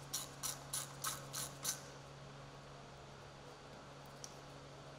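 Hand ratchet with a 13 mm socket clicking in even strokes, about three clicks a second, as it backs out a coolant reservoir bolt; the clicking stops a little under two seconds in. After that only a faint steady hum and one light tick.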